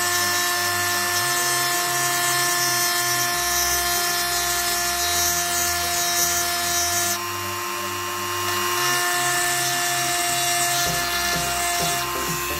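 Handheld Gamma mini rotary tool running at a steady speed, its motor whining while a small bit grinds a hissing line into a wet glass bottle. The grinding hiss eases about seven seconds in, while the motor keeps running.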